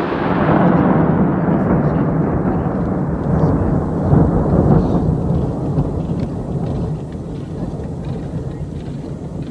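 Rolling echo of a 5-inch titanium salute shell's report, a long low rumble that swells again about four seconds in and then slowly dies away.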